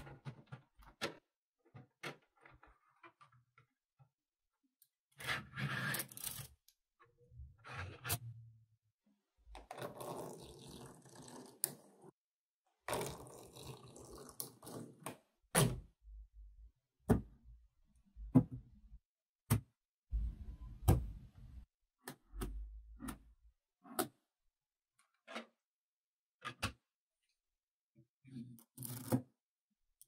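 Blocks of small magnetic balls being handled: a string of sharp clicks and snaps as blocks are set against each other, with several longer scrapes of a thin plastic sheet sliding between the blocks.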